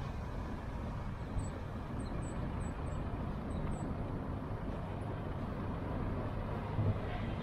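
Steady low rumble of city street traffic, with a few faint, high, short chirps about one and a half to four seconds in.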